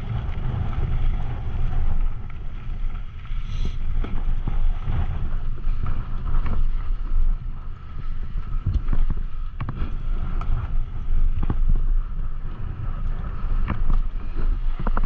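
Wind buffeting the microphone in a heavy, constant rumble while a mountain bike rolls fast down rough trail, with frequent sharp clicks and knocks as it rattles over rocks and bumps.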